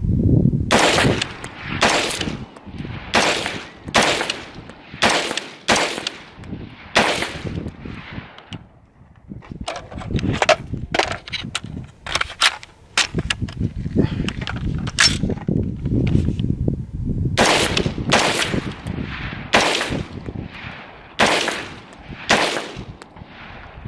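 LWRC IC-DI 5.56 AR-15 with a Muzzle Thumper muzzle device firing semi-automatic shots in quick strings, each crack with a short echoing tail. About ten loud shots come in the first seven seconds, fainter sharp cracks follow through the middle, and another run of about eight loud shots starts around seventeen seconds in.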